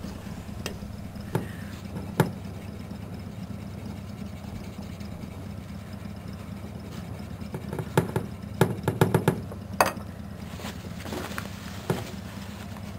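A cloth rubbing on a blued chrome exhaust pipe as it is hand-polished, with scattered knocks and taps, a cluster of them about eight to ten seconds in, over a steady low hum.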